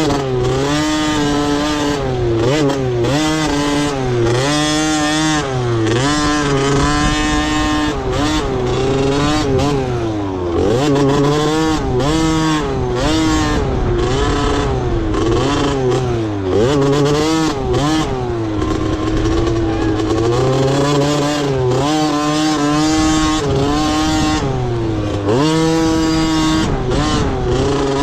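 Motocross dirt bike engines racing, revving up and falling off again and again as the riders open and close the throttle around the track.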